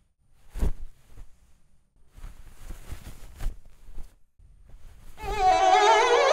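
Faint scattered knocks and rustles, then about five seconds in a bowed string instrument begins an Indian classical-style melody, its pitch wavering and sliding up into a long held note.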